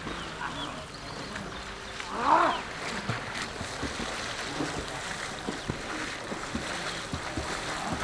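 Distant children shouting and calling while bathing in a river, with water splashing; one louder shout about two seconds in.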